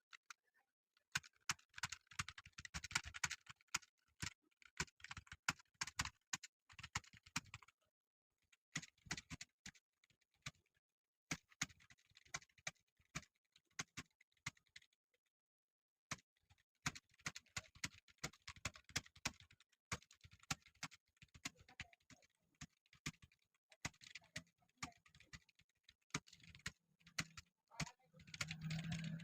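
Fast typing on a computer keyboard at about 52 words a minute: rapid runs of faint key clicks broken by short pauses.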